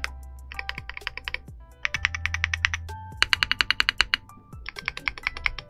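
Womier RD75 75% mechanical keyboard with an FR4 plate being typed on in four short runs of rapid keystrokes with brief pauses between them, over background music.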